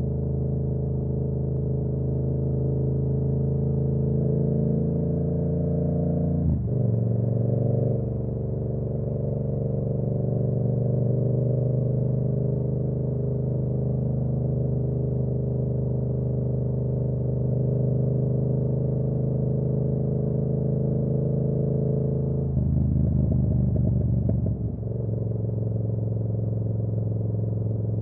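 Yamaha R7's parallel-twin engine running at steady revs while riding. There is a quick dip and recovery in pitch about six and a half seconds in, and a rougher, pulsing stretch near the end.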